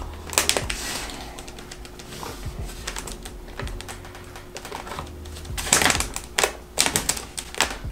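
Plastic spring clamps clicking and snapping as they are fitted onto a popsicle stick and plywood rocket fin, with light knocks of wood on the tabletop. There is a group of sharp clicks about half a second in, and a second run of clicks from about six seconds in.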